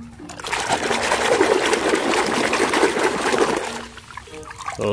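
Water splashing and sloshing for about three seconds as a muddy plastic toy is scrubbed by hand in a tub of clean water, dying away near the end.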